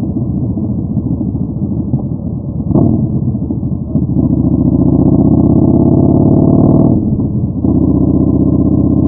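Yamaha Bolt 950's V-twin engine through a Vance & Hines Twin Slash staggered exhaust, riding under way. The note eases off after about two seconds with a short flare, then pulls hard and steady. It drops away briefly around seven seconds in and pulls again.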